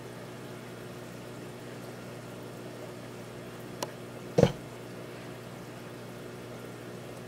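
Steady hum and water bubbling from a running aquarium's filter or pump. A faint click, then a short thump about four seconds in.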